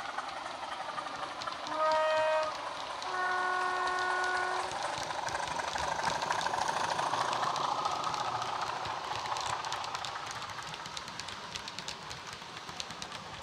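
Heljan OO gauge Class 27 model's DCC sound decoder, playing through a 27 mm bass-enhanced speaker, running its diesel engine sound and sounding its two-tone horn: a short high note about two seconds in, then a longer low note. The engine sound grows louder as the loco passes, with light clicking of wheels on the track.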